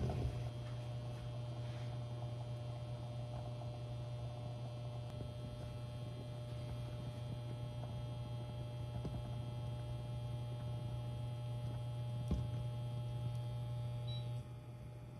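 Household appliance humming steadily. Near the end there is a short electronic beep, and the hum cuts off right after.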